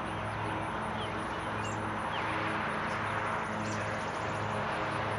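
Birds chirping a few times over a steady outdoor hiss and low, constant hum.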